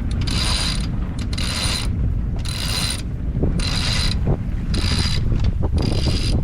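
Sailboat winch being cranked to hoist the mainsail on its halyard: the winch pawls ratchet in a short burst with each stroke of the handle, about once a second, over a steady low rumble.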